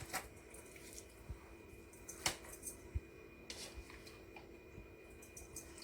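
Faint kitchen handling sounds: a few scattered light clicks and soft squishy rustles, the sharpest click about two seconds in.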